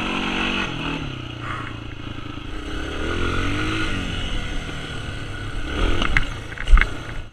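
ATV and dirt bike engines running while riding over rough grass, the revs falling in the first second and rising and falling again a few seconds in. A sharp, loud knock comes near the end.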